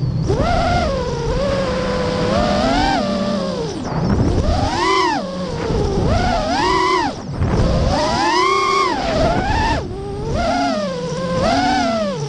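Lumenier QAV-R racing quadcopter's brushless motors and propellers on 6S power whining, the pitch swinging up and down again and again as the throttle is punched and cut through loops and turns. Wind rush on the onboard camera's microphone runs under it.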